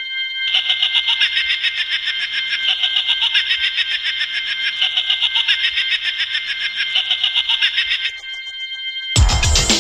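Ambient techno: a high, rapidly pulsing synth texture that sounds like an alarm, over faint low tones. It drops out for about a second near the end, then the full beat with deep bass comes in.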